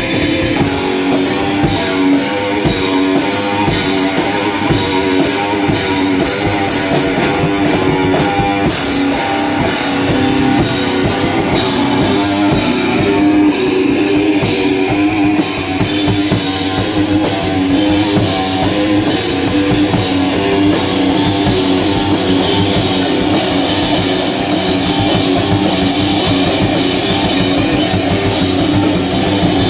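Live rock band playing a song, with electric guitars and a drum kit, loud and steady throughout.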